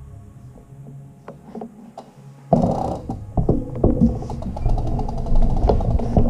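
Faint steady tones, then about two and a half seconds in a sudden loud low rumble with knocks and rattles: a handlebar-mounted camera picking up the bicycle as it starts rolling across a concrete floor.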